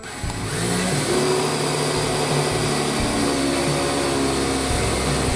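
DeWalt cordless drill/driver running steadily under load, its bit working into a small pine block.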